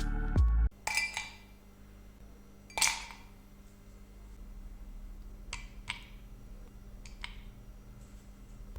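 Background music cuts off in the first second, then dishes are handled with a few short, sharp clinks spread through the rest, over a low steady hum.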